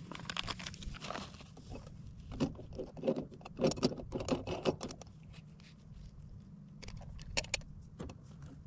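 Metal stovetop moka pot being handled: a run of short clinks, taps and scrapes as the pot is screwed together and set on a small camping stove, with a few more clinks near the end.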